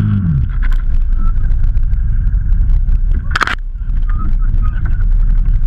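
Off-road vehicle's engine dropping in revs, then a steady low rumble as it moves over rough forest ground, with scattered knocks and clicks. A short sharp noise about three and a half seconds in.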